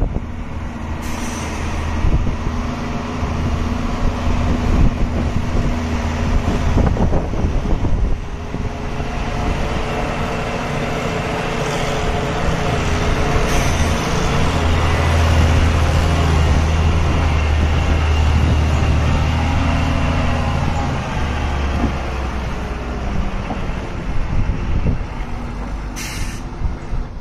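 Truck diesel engine running steadily, its low note shifting a few times, with two short hisses, about a second in and near the end.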